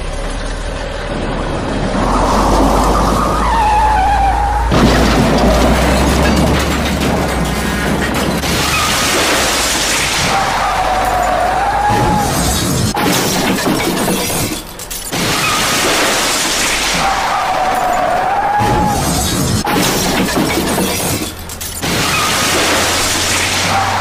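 Loud looped crash sound effect of shattering and smashing, repeating about every seven seconds, each time with a short wavering tone.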